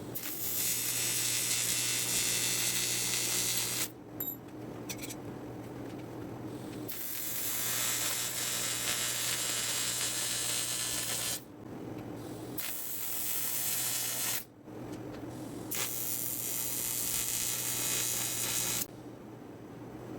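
TIG welder arc hissing in four runs of a few seconds each, each starting and stopping abruptly, over a steady low hum.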